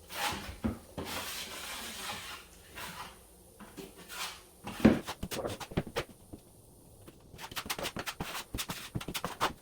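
Hands-on handling noise: rustling and rubbing for the first few seconds, a single sharp knock in the middle, then a quick run of small clicks and taps near the end.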